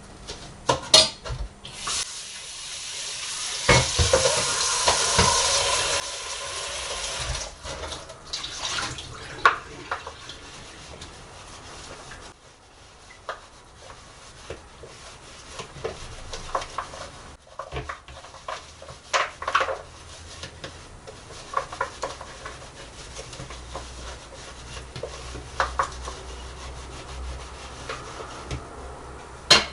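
Kitchen work: about two seconds in, a steady rushing noise starts and runs for about four seconds. After that come scattered clinks, taps and knocks of utensils and dishes being handled.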